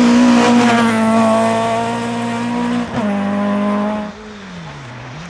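Toyota Starlet rally car engine running hard at high revs as it passes close, its note sagging slightly, with a brief break about three seconds in. After about four seconds it gives way to a quieter, more distant rally car whose engine note falls steadily as the driver lifts off.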